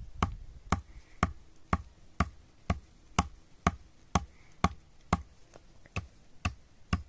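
Steady series of sharp knocks, about two a second, evenly paced like a tool striking again and again.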